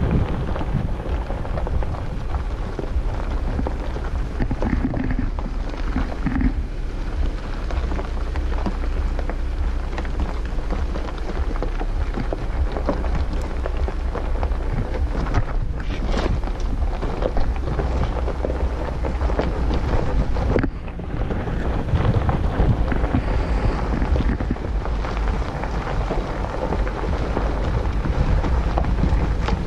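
Jeep Wrangler Unlimited rolling down a rocky dirt road: a steady rumble and crackle of tyres over loose gravel and stones, with the vehicle's low drone beneath.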